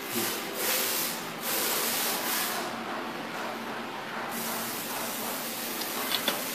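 Hiss of compressed air from a pneumatic hot stamping machine, coming in several surges of about a second each, with a couple of small clicks near the end.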